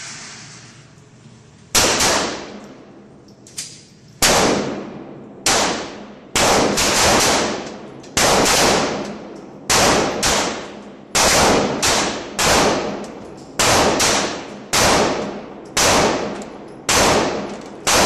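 Ruger Mark II semi-automatic pistol firing .22 LR, a string of sharp shots each with a short ringing tail, starting after a pause of almost two seconds and coming irregularly, one every half second to a second and a half.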